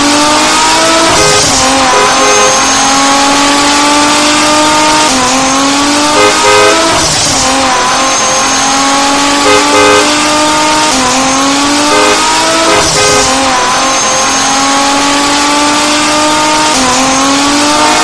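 Race car engine accelerating hard through repeated gear shifts: each climb in pitch breaks off and starts again lower, over a steady hiss. Two short, louder blips come near the middle.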